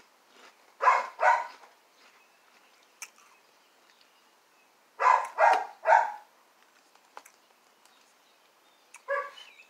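A dog barking: two barks about a second in, then three quick barks around five seconds in.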